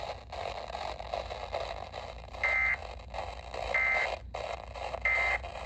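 Three short, shrill digital data bursts about a second apart over a steady hiss of radio static. These are the SAME end-of-message tones that close a NOAA Weather Radio warning broadcast, heard through the receiver's speaker.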